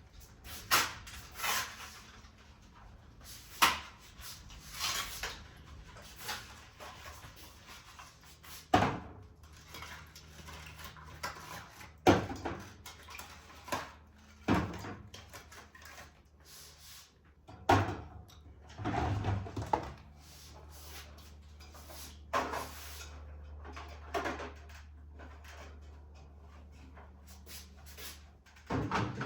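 Groceries being packed into a fridge: scattered knocks and clunks of items and containers against shelves, with short rustles of packaging. A low steady hum comes in about two-thirds of the way through.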